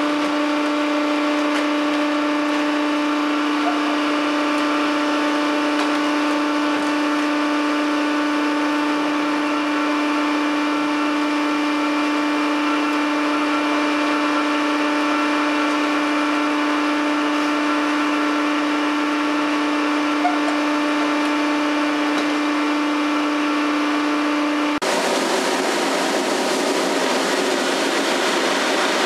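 A steady machine hum with a strong, even pitch. About 25 seconds in it cuts to a broad rushing noise as a chip trailer tipped on a truck dumper empties wood chips into the receiving pit.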